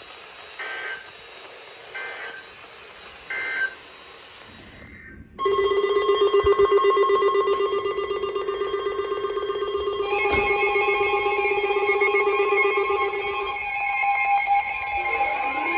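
Three short Emergency Alert System end-of-message data bursts over broadcast hiss. About five seconds in, a loud electronic alert tone starts. It is a steady chord with a fast pulse, shifts pitch about halfway, and gains rising and falling sweeps near the end.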